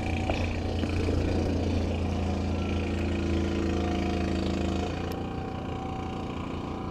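An engine running steadily with a low hum; its higher tones drop away about five seconds in.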